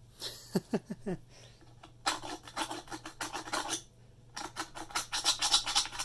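A hand scraping and rubbing along the stiff bristles of a Royal 608 upright vacuum's wooden brush roll, pulling lint out of it: two runs of rapid, even scratchy strokes, after a few short squeaks about a second in.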